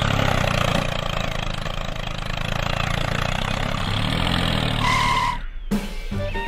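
Tractor engine running steadily, with a short high beep about five seconds in. It then cuts off and guitar music begins near the end.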